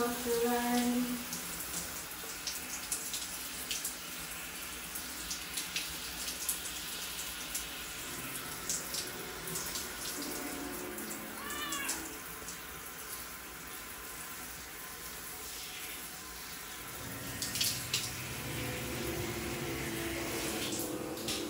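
A shower spraying steadily onto a tiled floor. A cat meows at the very start and again, with a rising call, about halfway through.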